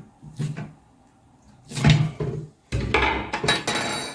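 Clatter of the seat's hinge hardware and tools being handled on the toilet: a sharp knock about two seconds in, then a longer rattling scrape with a slight metallic ring near the end.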